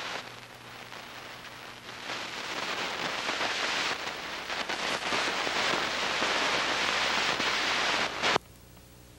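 Steady rain, an even hiss that grows louder about two seconds in and cuts off suddenly near the end.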